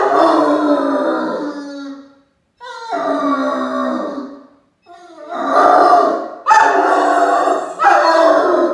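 A young Great Dane howling at his squeaky mouse toy: a run of long, loud howls, one after another with short breaks between them.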